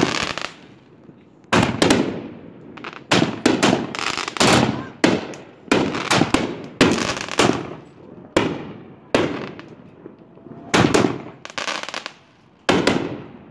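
Consumer firework cake firing its mortar tubes: a rapid string of sharp bangs as shells launch and burst, often about two a second, each fading quickly. A short lull comes about a second before the end, then two more bangs.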